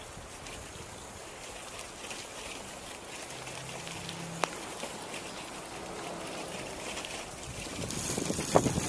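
Bicycle tyres rolling on a gravel trail, a steady hiss with one sharp click about halfway through. Near the end, wind buffets the microphone and the noise grows louder.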